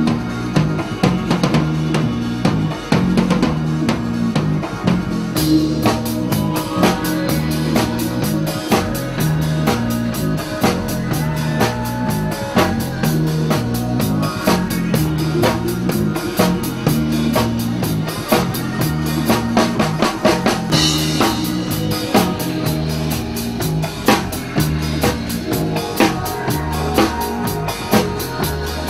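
Live band music with a drum kit to the fore: kick drum, snare and cymbals keeping a steady beat.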